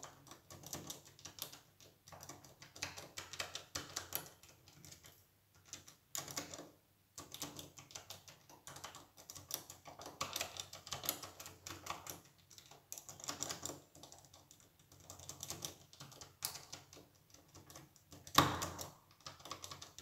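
Buttons of a mechanical push-button door lock pressed one after another while the lever is held under tension, giving a run of soft, irregular clicks; the pressing tests which buttons set under tension, to decode the combination. A louder knock comes near the end.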